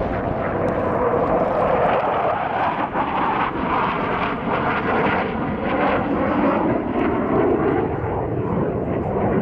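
Loud, steady jet noise of a USAF F-15E Strike Eagle flying through its display, the rushing sound shifting in pitch as it moves.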